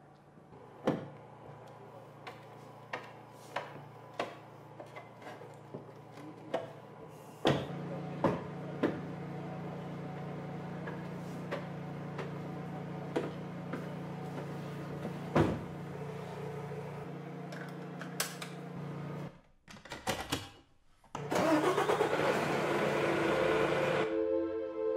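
Truck cab sounds: a series of sharp clicks and knocks, then about seven seconds in a truck engine starts and runs with a steady low hum, with further knocks over it. It breaks off briefly near the end before a loud rushing noise.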